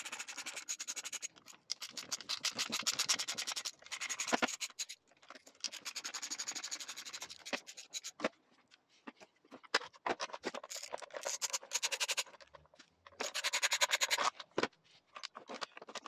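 Hand screwdriver backing out the casing screws of a Stihl TS400 disc cutter's pull-cord starter housing: several runs of rapid ticking and scraping as the screws turn, with short pauses between them.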